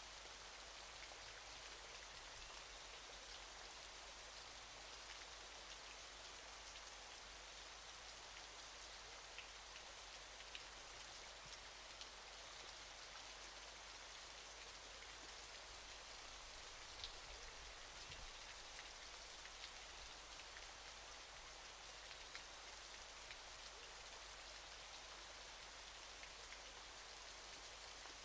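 Waterfall: a steady, even hiss of falling water, mostly high in pitch, with a few faint ticks of drops here and there.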